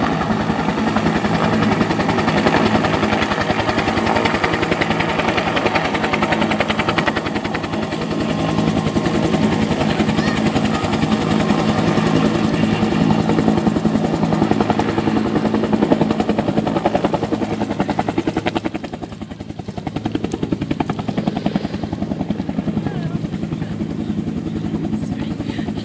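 Military helicopter flying low and setting down, its rotor blades chopping rapidly over a steady engine drone. The sound dips briefly about two-thirds of the way through, then comes back.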